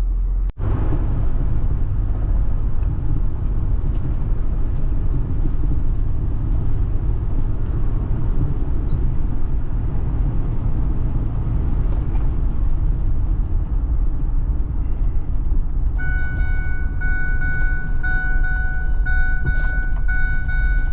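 Road and engine rumble inside a moving vehicle's cabin, steady and loud. Near the end a steady high tone with overtones comes in.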